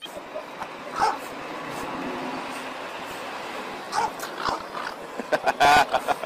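Small dog barking and yipping in short separate bursts at a cat on the other side of the glass, with the loudest and longest bark near the end.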